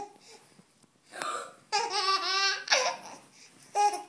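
A baby laughing hysterically in several bouts of high-pitched laughter, with a run of rapid ha-ha pulses about two seconds in.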